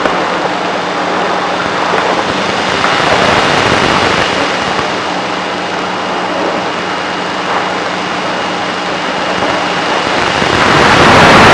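Radio static from a CB radio receiver: a steady rushing hiss with a faint constant hum and a thin high whine under it.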